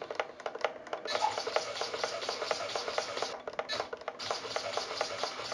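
Small RC hobby servos buzzing and clattering as the receiver drives them, in fast irregular bursts of gear clicks: a few sparse clicks at first, then busy chatter from about a second in.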